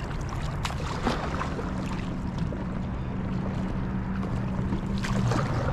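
Kayak paddle strokes dipping and splashing in lake water, with wind rumbling on the microphone. A low steady hum runs through the middle few seconds.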